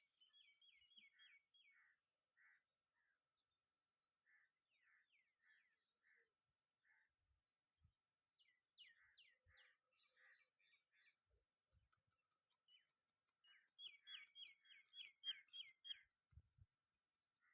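Faint birdsong from a small songbird: repeated runs of quick, falling chirps, the loudest run coming a little before the end. A few soft low thuds come in between.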